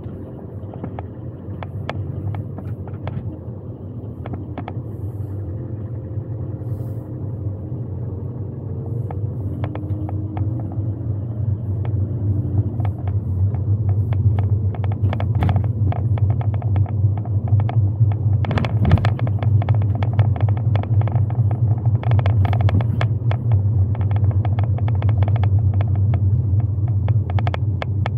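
Car driving heard from inside the cabin: a steady low road and engine rumble that grows louder as the car picks up speed, with frequent small ticks and rattles and one stronger knock about two-thirds of the way through.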